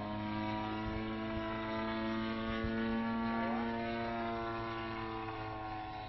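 Radio-controlled P-40 Warhawk model's GT 61cc gas engine and propeller droning steadily in flight, a little fainter near the end.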